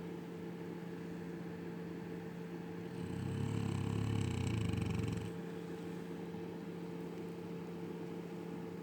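A sleeping Cane Corso snoring once, a deep snore of about two seconds starting about three seconds in, over a steady low hum.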